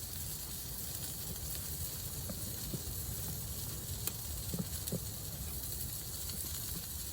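Chicken frying in a cast iron pan over a campfire: a steady sizzling hiss with a few faint pops.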